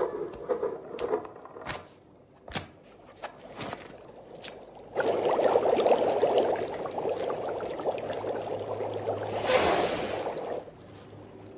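Water pouring into a cooking pan. It starts suddenly about five seconds in, runs for about five seconds with a brief brighter hiss just before it stops, and is preceded by a few light scattered knocks.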